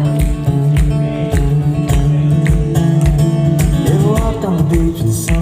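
Live band playing a song's intro: acoustic guitar and bass over a steady kick-drum beat, with a short sung or called phrase about four seconds in.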